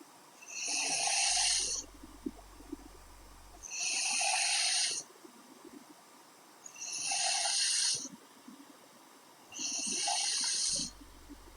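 A woman snoring in her sleep: four airy snores, each about a second long, coming regularly about every three seconds with quiet breathing gaps between.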